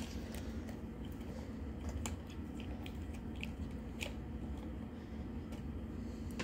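Faint handling noises from a WLtoys 104001 RC car's drivetrain and a small screwdriver: scattered light clicks and ticks of plastic and metal parts as the drive shaft is turned by hand to reach its grub screw, over a low steady hum.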